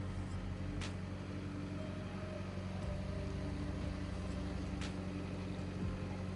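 A vehicle engine running steadily, with two sharp clicks, about a second in and near five seconds.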